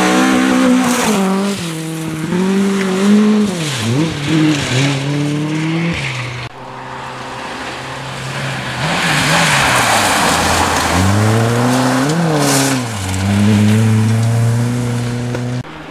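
Rally cars at full throttle on a gravel stage, engines revving up and dropping back through gear changes and lifts, over the hiss of tyres and thrown gravel. Two separate car passes, with a cut between them about six and a half seconds in.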